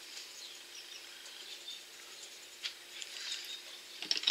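Faint bird chirps over a faint steady hum, then a few sharp clicks near the end as small glass nail polish bottles are handled.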